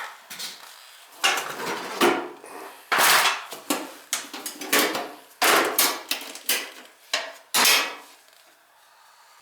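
Metal tools and parts being handled, a string of irregular sharp clanks and rattles that dies down near the end.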